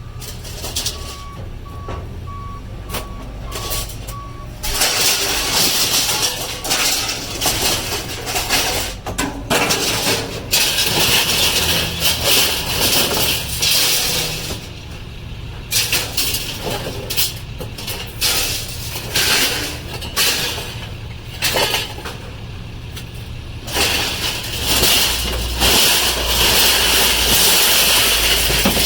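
A truck engine running steadily, with a short run of beeps in the first few seconds. From about five seconds in, loud surges of hissing noise come and go, some lasting a few seconds.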